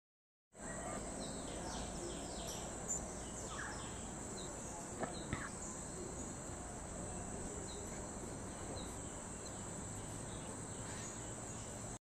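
Outdoor natural ambience: insects droning steadily at a high pitch, with many short bird chirps scattered throughout and a few brief sharp clicks about three and five seconds in.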